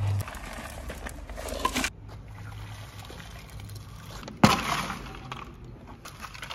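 Wet concrete mix tipped out of a plastic bucket onto hollow bricks, the load landing with a sudden splat about four and a half seconds in. Before that, a hand scraping and rustling through concrete mix.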